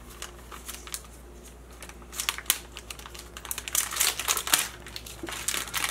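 Crinkling and crackling of the thin protective plastic film on a new cable modem as it is handled and peeled. It comes as a run of small irregular clicks that starts about two seconds in.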